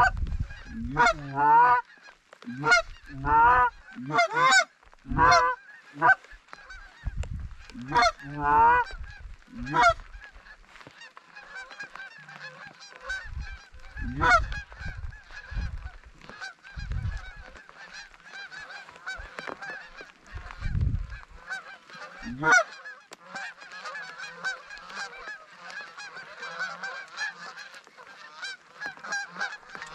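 Geese honking: loud, wavering honks about once a second for the first ten seconds, then a steady, dense chorus of many geese. A few dull low thumps come in the middle.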